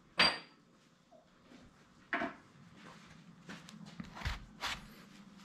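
Quiet handling noises as a gloved hand works a screwdriver in its foam cutout: two short scuffs, then a scatter of soft taps and a dull thump about four seconds in.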